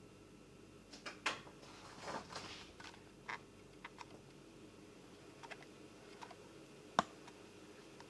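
Faint, irregular clicks of computer keys and mouse buttons, a dozen or so scattered taps, the sharpest about seven seconds in.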